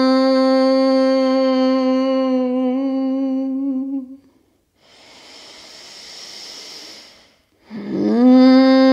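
Bhramari (bumblebee) breath: a woman hums one long, steady note with her mouth closed, and it fades out about four seconds in. A deep breath is drawn in through the nose, then a new hum slides up into the same steady note near the end.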